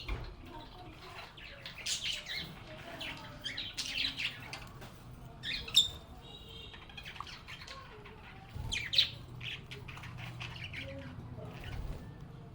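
Lovebirds chirping and squawking together in a busy, overlapping run of short high calls, with two sharp, louder squawks about six and nine seconds in.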